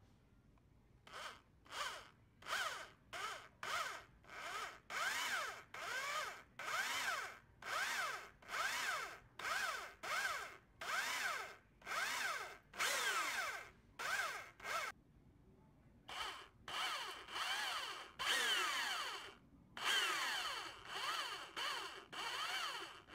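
Electric hand drill with a twist bit drilling through painted metal angle, the trigger squeezed in short bursts of half a second to a second, the motor's whine rising and falling in pitch with each burst. There is a short pause about two-thirds of the way through before the drilling resumes.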